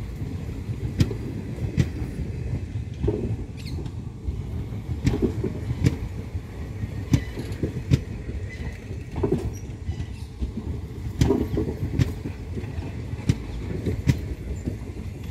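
Passenger train coaches rolling past close by: a steady low rumble, with sharp wheel clacks about once a second.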